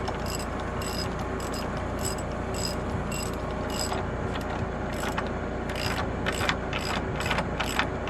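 Ratchet wrench clicking as the nut on a wedge anchor bolt set in a concrete slab is tightened, which draws the anchor up so its clip locks against the hole. Short metallic clicks come in runs a few a second, getting louder and quicker about five seconds in.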